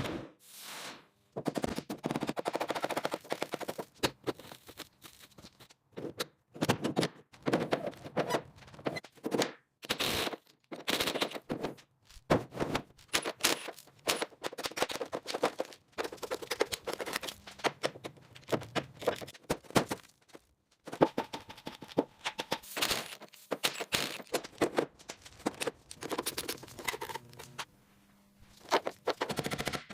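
Workshop tool noise: bursts of rapid mechanical impacts, each lasting a few seconds, with short pauses between.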